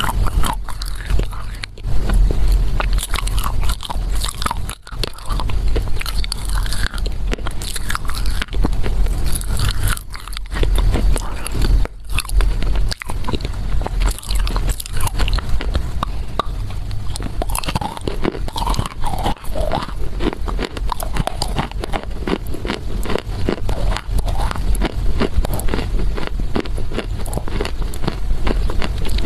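Close-miked biting and chewing of a chunk of dry loess clay: dense, constant crunching and crackling, over a steady low hum.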